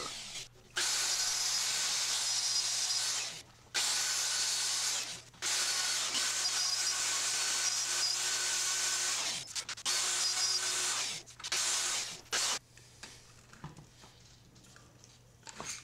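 Plunge router running as it cuts recessed numbers into a wooden board along a template. The whine comes in several stretches that start and stop abruptly, then drops away for the last few seconds.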